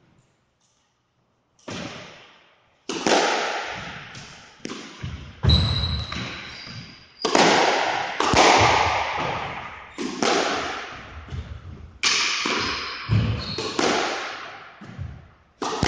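Squash ball being struck by rackets and smacking off the court walls in a practice rally, a sharp hit roughly every second, each one echoing around the hard-walled court. The hits start about two seconds in, and a short high squeak comes around the middle.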